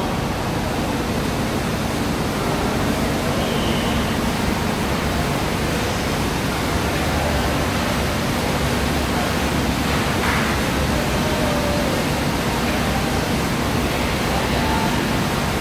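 Steady, even rushing noise with a faint low hum beneath it.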